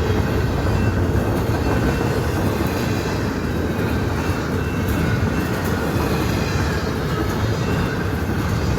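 CN intermodal freight train, its container cars rolling past on the rails with a steady rumble.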